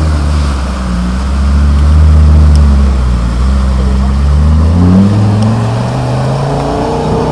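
Land Rover Defender pickup's engine pulling hard under load as it drives through a muddy gully, loud and steady, then rising in pitch about five seconds in as it climbs out.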